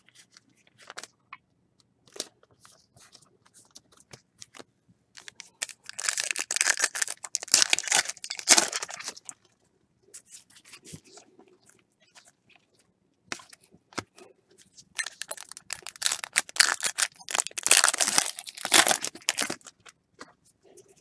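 A foil trading-card pack wrapper being torn open and crinkled, in two long stretches of tearing about six and fifteen seconds in, with light clicks of cards being handled in between.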